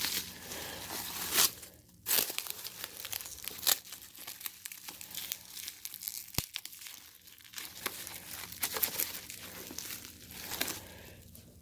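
Bubble wrap crinkling and rustling as it is handled and pulled open around a laptop, with a run of small crackles and a few sharper snaps.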